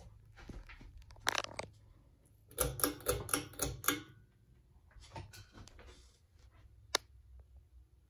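Turn of the Century ceiling fan running with a low steady hum, over which come irregular sharp clicks and knocks: a quick run of about six, a few softer ones, and one single sharp click near the end.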